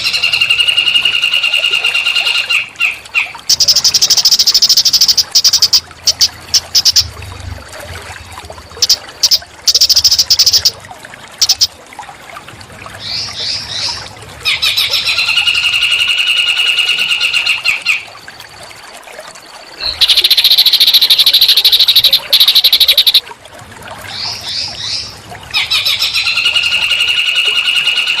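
A small songbird's song played as a training track for magpie robins. Buzzy trilled phrases a few seconds long alternate with rapid high-pitched trills and short rising notes, and the same sequence repeats about every ten seconds.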